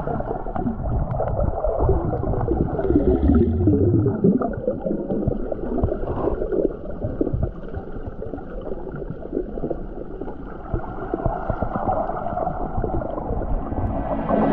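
Sea water heard through a camera held underwater: a muffled, noisy wash with most of the sound low and dull.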